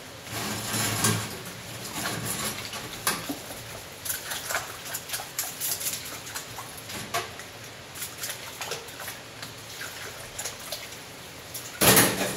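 Water sloshing and splashing in a stainless steel sink of foamy detergent as gloved hands and a brush work instruments under the surface, with scattered short clicks and knocks. A louder splash comes near the end.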